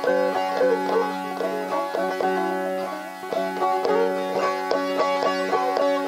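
Background music: a plucked string instrument picking a quick melody over a steady drone.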